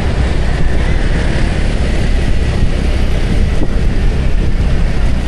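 Steady wind buffeting on the microphone of a moving motorbike, with the bike's running engine and road noise underneath.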